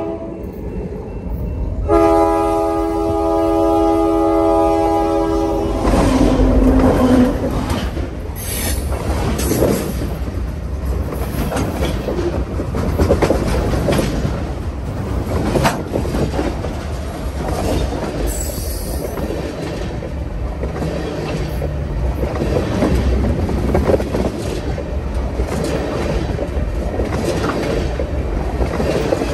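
Freight locomotive's air horn sounding a chord, a short blast and then a long one of about four seconds. Then the train rolls directly over the microphone between the rails: a heavy, loud rumble with steel wheels clacking over the track and metal rattling as the locomotive and tank cars pass.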